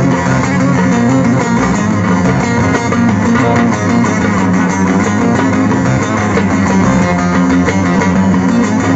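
Instrumental Turkish folk music without singing, led by plucked string instruments playing steadily.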